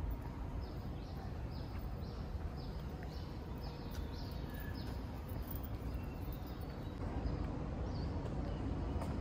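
A bird calling over and over with short, falling high chirps about twice a second, thinning out after about four seconds, over a steady low outdoor rumble.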